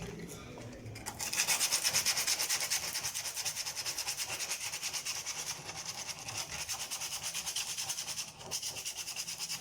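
80-grit sandpaper worked by hand over the rusted metal of a refrigerator door, sanding the rust off: quick, even back-and-forth rasping strokes, about five a second, starting about a second in, with a brief pause near the end.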